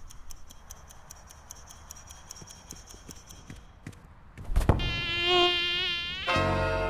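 Rapid ticking, about five ticks a second, under a faint high whine, then a few sharp thuds about four and a half seconds in as the football is kicked at the netted goal. A loud mosquito buzz follows, wavering in pitch for about a second and a half, before music starts near the end.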